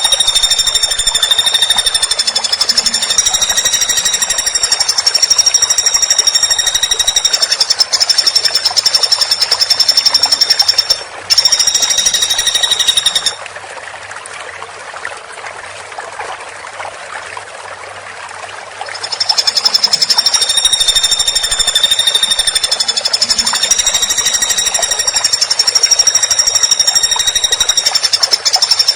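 Woodpecker call: a long, very fast rattling trill of high, clear notes. It breaks off briefly about 11 seconds in, stops at about 13 seconds leaving only a quieter background hiss, and starts again about six seconds later.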